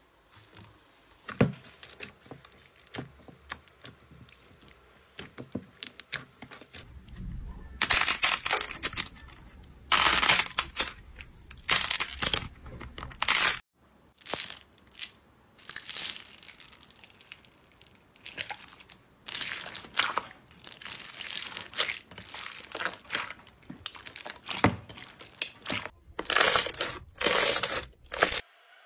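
Slime being squished, stretched and kneaded by hand, making crackly, crunching and popping sounds in uneven bursts with short quieter gaps between.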